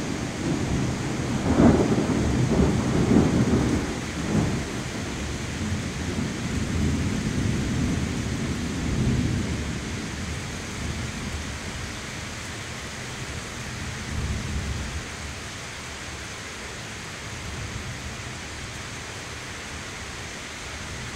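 Thunder rumbling over a heavy, steady downpour of rain. The rumble is loudest in the first few seconds, dies away, and swells briefly again about two thirds of the way through, while the rain hiss carries on and eases slightly.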